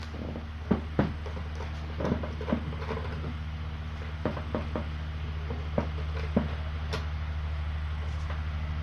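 Cats eating freshly served kibble: scattered light clicks and knocks at the food bowls, irregularly spaced, over a steady low electrical hum.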